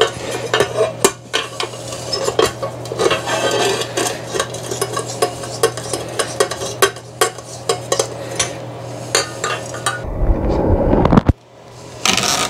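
Hard parts and tools clicking and clattering as they are handled during a quick fix, over a steady low hum. About ten seconds in, the clatter gives way to a loud low rumble that cuts off abruptly, then briefly returns just before the end.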